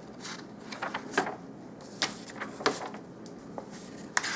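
Accessories and papers being handled and rummaged through: light rustling with several short clicks and knocks of plastic items.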